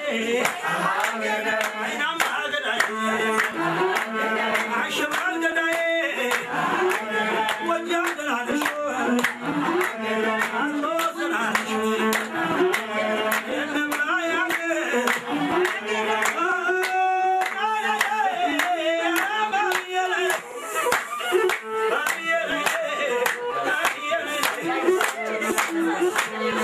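Group singing to music, with many hands clapping in a steady rhythmic beat.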